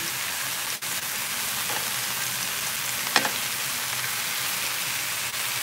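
Chunks of beef sizzling steadily as they sear in a hot skillet, with one sharp click about three seconds in and a momentary dropout in the sound just under a second in.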